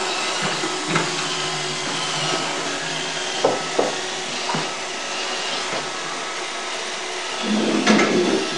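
iRobot Roomba 555 robot vacuum running, with a steady whirring hiss from its motor and brushes and a few short knocks. Near the end the sound briefly grows louder and lower.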